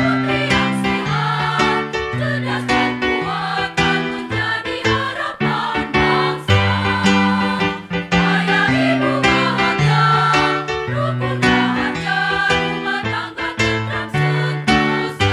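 Women's choir singing an Indonesian march over instrumental accompaniment, with moving bass notes and a steady beat.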